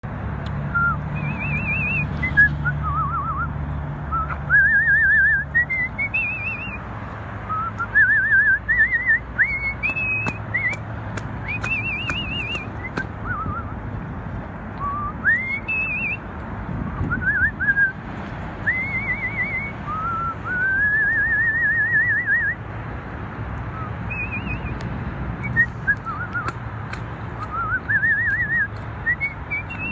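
A person whistling a melody in gliding, rising phrases with a quick wavering vibrato on the held notes.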